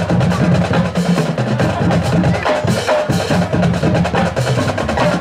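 Marching band percussion section playing a rhythmic drum passage, with sharp snare-like strokes over repeated low drum notes.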